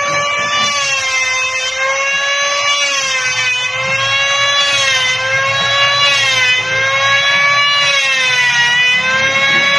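Corded electric circular saw running as it cuts a wooden plank: a steady high motor whine that wavers slightly in pitch as the load on the blade changes.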